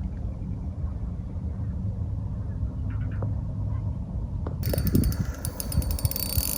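Fishing reel's ratchet clicking rapidly for about two seconds near the end, over a steady low rumble of wind on the microphone.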